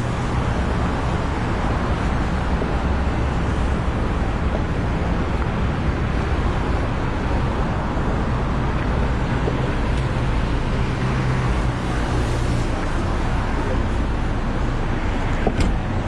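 Car driving along, with steady road noise and a low engine hum; the hum drops away about three-quarters of the way through, and there is a short click near the end.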